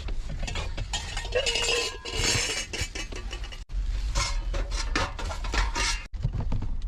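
Clattering and clinking of hard household items being handled and shifted about, dense knocks with a few short metallic rings.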